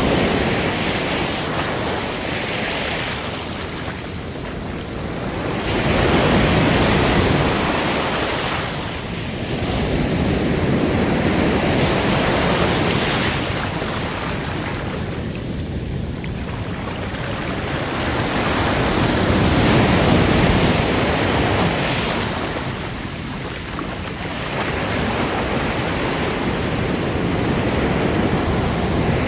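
Ocean surf breaking on the beach, the wash swelling and falling every several seconds, with wind buffeting the microphone.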